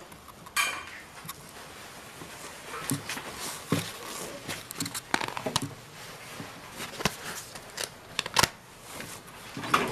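Close rustling with scattered light clicks and knocks, the sound of a phone camera being handled and things being packed up; a few sharper knocks stand out, one about half a second in and others near the middle and towards the end.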